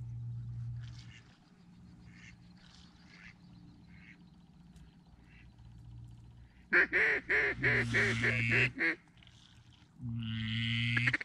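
Duck call blown in a quick run of loud, rapid quacks starting about seven seconds in, then a shorter, more drawn-out call near the end. Fainter scattered calls come before.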